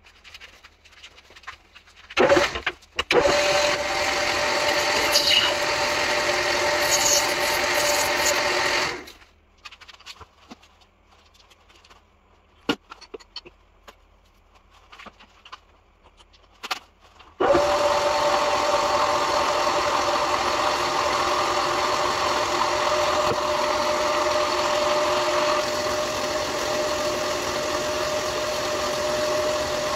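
Old metal lathe starting with a sudden clunk and running steadily with a clear tone for about six seconds before it stops. Then a quiet stretch with small clicks and knocks as the tool is set, and the lathe starts again and runs steadily while the tool faces the end of a bronze bar.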